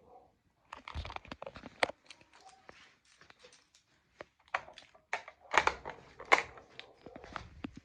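Irregular clicks, knocks and rustling, like things being handled at close range, with a denser cluster about a second in and another around the two-thirds mark.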